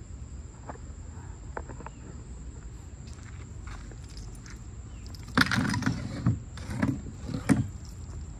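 Cordless power tools being handled and set down on a plywood sheet: a few light taps early, then a cluster of knocks and thuds over about two seconds in the second half, over a steady low background rumble.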